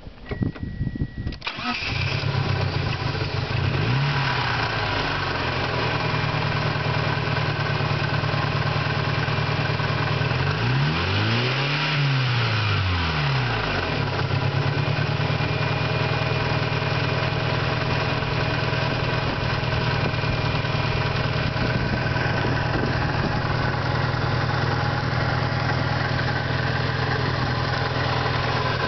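Turbocharged 4G63 inline-four of a 1991 Eagle Talon TSI being started: a brief crank, then it catches about a second and a half in and settles into a steady idle. The owner hears a weird noise in it that he puts down to a failing pulley, a valve problem or a stretched timing belt.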